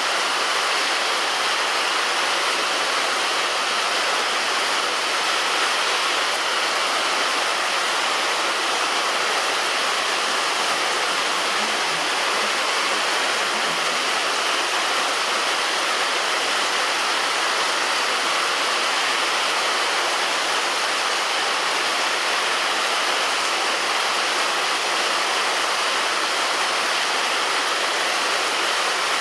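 Heavy rain falling on a roof, a steady unbroken hiss.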